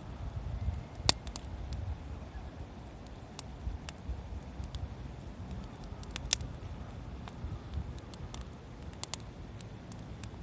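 Wood campfire crackling, with sharp irregular pops, the loudest about a second in and another near the middle, over a low rumble.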